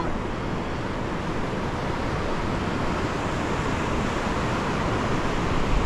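Steady rush of surf and wind on an open beach, with some wind noise on the microphone.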